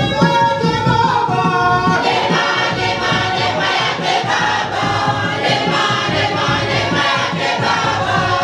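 A church choir singing a lively gospel song together, with a steady beat underneath.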